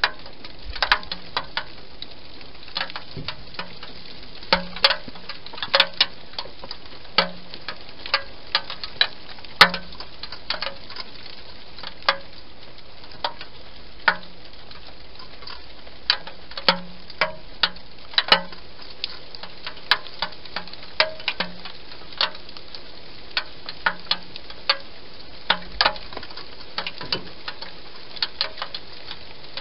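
A wild hedgehog eating: irregular sharp crunching clicks and smacks, one or two a second, over a faint steady hiss.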